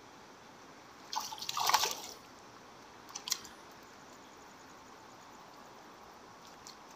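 A hooked fish splashing at the water's surface as it is drawn in on a pole rod's line: a burst of splashing about a second in that lasts about a second, then a shorter splash about three seconds in.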